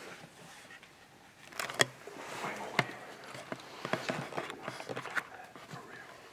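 Scattered faint clicks and knocks in a quiet, hushed room, with one sharp click about two seconds in and a run of small ticks after it.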